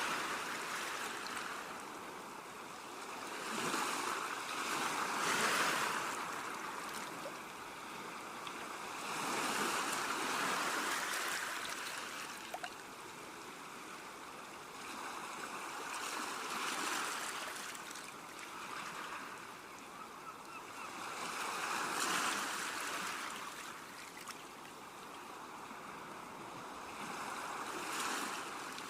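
Small sea waves washing onto the shore, a hissing wash that swells and fades every five or six seconds.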